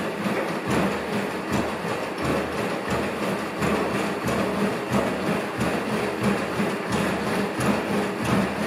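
ANYmal quadruped robot trotting: a steady mechanical whir from its joint actuators, with regular knocks of its feet striking the floor.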